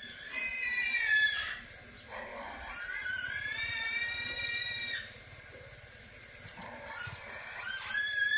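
Nursing puppies whining in high, thin squeals: a short falling whine near the start, a long drawn-out one of about two seconds in the middle, and another beginning near the end.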